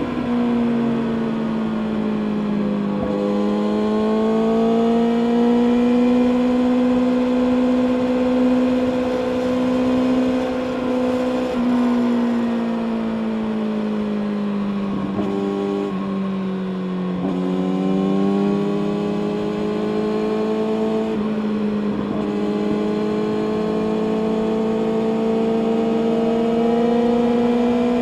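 Kawasaki ZX-6R inline-four sport bike engine through an Akrapovic exhaust, running at steady mid revs under way. The engine note dips in pitch early on, holds, falls away gradually near the middle, then climbs slowly back up with small steps in pitch.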